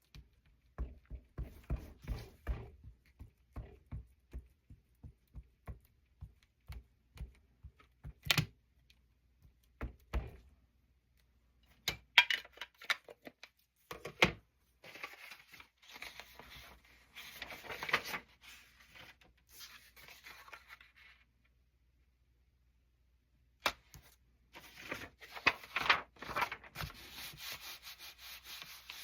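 Hand stamping at a craft table. A quick run of light taps, a few sharp knocks, then spells of rubbing and scraping on paper and cardstock.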